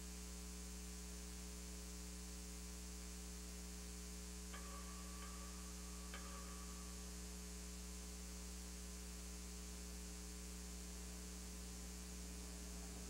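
Steady electrical mains hum, a low buzz of several even tones, with faint hiss. A couple of faint clicks come about four and a half and six seconds in.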